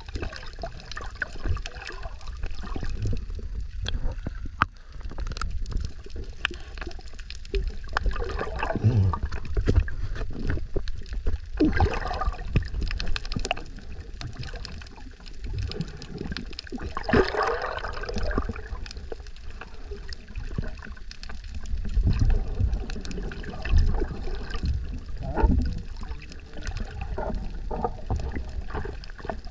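Water heard from underwater: a muffled low rumble of moving water with gurgles and scattered small clicks, louder in a few stretches.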